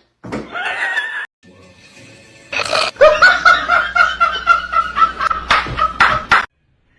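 A person laughing hard in a quick run of ha-ha pulses for about three seconds, cutting off suddenly.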